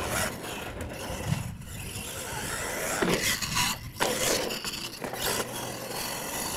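Radio-controlled monster truck driving on a dirt track: its motor whines, rising and falling in pitch with the throttle, over the scrape of its tyres on the dirt.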